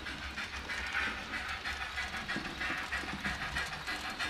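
Sound decoder in a model FS Gr.685 steam locomotive playing a regular rhythm of steam exhaust chuffs through its small speaker as the train runs, over a steady low hum.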